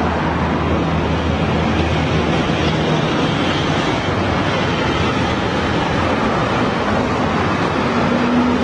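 Steady road traffic noise: a continuous wash of engines and tyres, with a low engine hum running through it.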